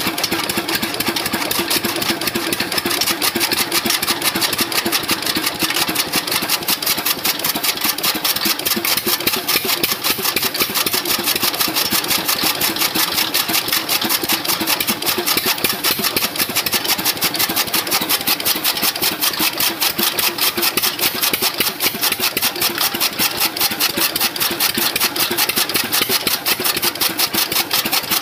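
12 hp single-cylinder stationary diesel engine running steadily with a rapid, even beat, belt-driving a chaff cutter that is chopping green fodder.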